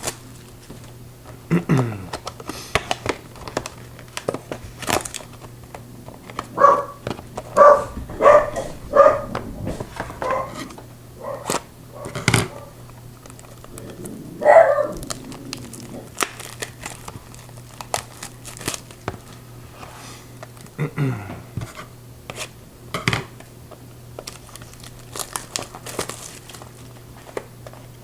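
Plastic wrapping crinkling and tearing, with scattered clicks and knocks, as a trading-card box is unwrapped and opened by hand. A run of about six short pitched sounds comes around the middle.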